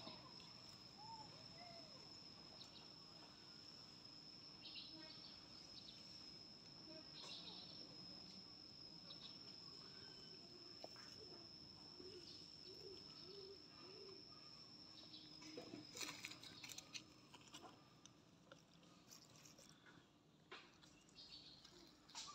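Faint outdoor ambience: an insect's steady high-pitched call runs until about two-thirds of the way through, then stops. Scattered faint clicks and rustles are heard, a few together just after the call ends and one near the end.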